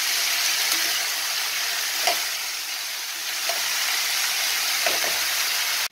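Mixed vegetables sizzling steadily in oil in a wok as they fry down to soften, with a spatula stirring and scraping the pan about three times. The sizzle cuts off suddenly at the end.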